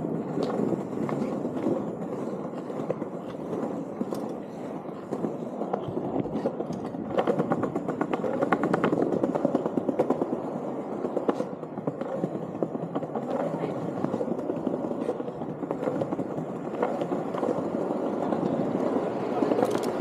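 Small cruiser skateboard wheels rolling over paving slabs: a steady rumble, with a run of rapid clicks in the middle as the wheels run over the slab joints, and an occasional knock.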